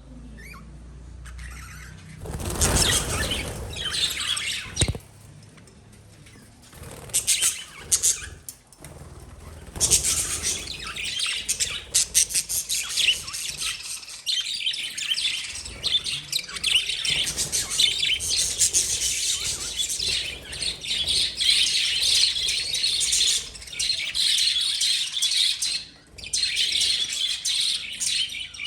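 Pet lovebirds chirping and chattering, high-pitched: scattered bursts for the first ten seconds or so, then a near-continuous chatter of many calls.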